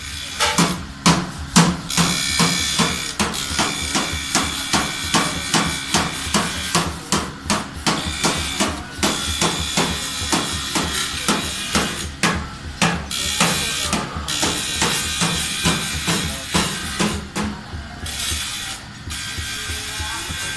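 Background music with a steady, driving drum beat.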